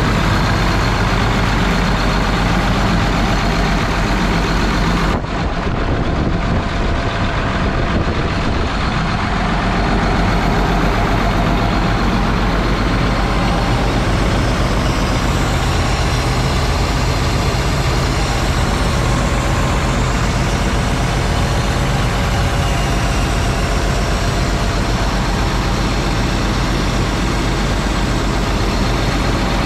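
Hyundai Robex 320LC-7 excavator's turbocharged six-cylinder diesel engine idling steadily, heard close up with the engine bay open.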